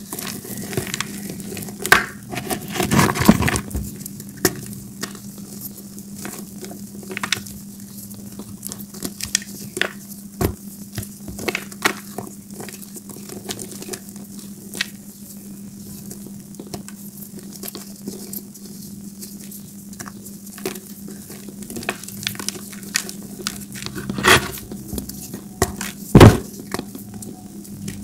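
Gym chalk balls crushed and crumbled by hand in a bowl of chalk powder: continuous small crunches and crackles, with louder crunches about three seconds in and twice near the end.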